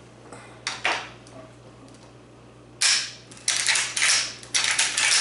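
Marlin 1895 .45-70 lever-action rifle's action being worked in a function test. Sharp metallic clicks: two about a second in, then a quick run of several more from about three seconds on. The action works properly after the saddle ring install.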